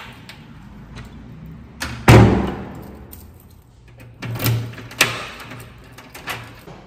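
Front door pulled shut by its lever handle, closing with a loud thud about two seconds in, then a key turned in the door's lock, giving three clunks.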